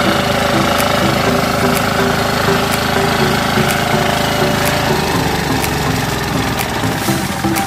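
Engine of a Kohler 10 hp walk-behind power tiller running steadily under load as its rotary tines and ridger work the soil.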